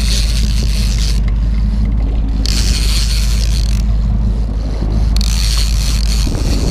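Wind rumbling on an action camera's microphone on a boat at sea, with a loud hiss that surges three times, while a trolling reel is cranked against a fish.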